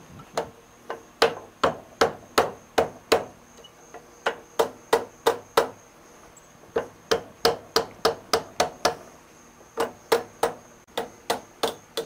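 Rubber mallet striking the end of a South Bend lathe's cross-feed screw to drive it out of the saddle: sharp blows about three a second, in runs of several strikes with short pauses between, each leaving a brief metallic ring.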